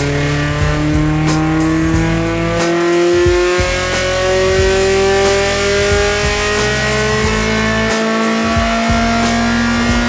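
Nissan race car engine at full load on a chassis dyno during a tuning pull, its revs climbing slowly and steadily throughout.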